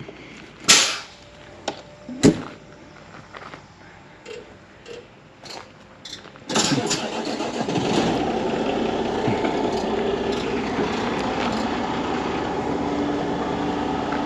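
Two sharp knocks in the first few seconds, then the Peterbilt 389 dump truck's Cummins diesel starts about six and a half seconds in, flares briefly and settles into a steady idle.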